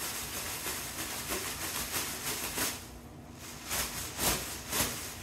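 Black plastic trash bag shaken by hand: a continuous crinkling rustle, with several louder swishes in the second half.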